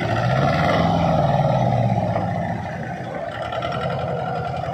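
Mahindra Jivo 245 DI mini tractor's two-cylinder diesel engine running steadily as the tractor drives round in a tight turn, easing off slightly after about two seconds.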